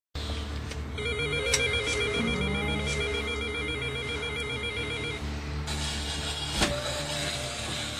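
An electronic ringer warbling rapidly between two tones for about four seconds, starting about a second in, over a steady low hum.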